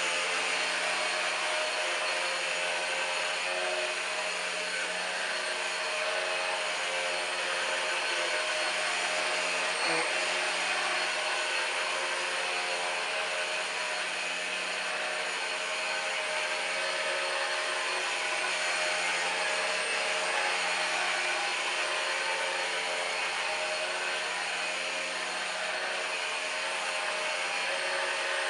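Numatic Henry Quick HEN70 cordless stick vacuum running steadily, its motor giving a constant whine over a hiss of rushing air as it is pushed over the floor. There is a small knock about ten seconds in.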